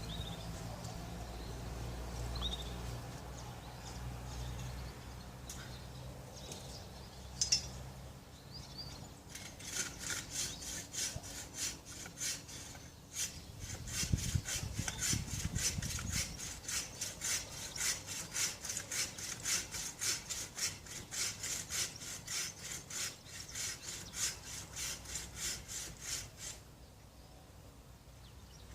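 Handsaw cutting through a beefwood tree trunk in steady back-and-forth strokes, about two to three a second, starting about a third of the way in and stopping shortly before the end. A low steady hum is heard in the first several seconds.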